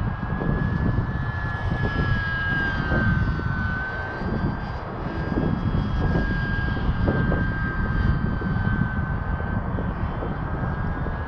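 Electric motor and propeller of an ultra-micro RC biplane (E-flite UMX Pitts S-1S) whining in flight, its pitch sagging and rising slightly with the throttle. Strong gusty wind buffets the microphone with a heavy low rumble throughout.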